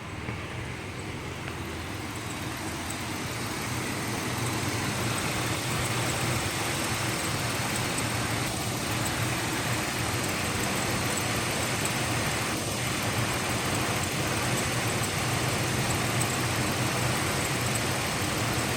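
Truck engine idling steadily with the heater on, growing louder over the first few seconds and then holding. A faint, regular light clicking runs through it, a clicking that comes with the heater switched on.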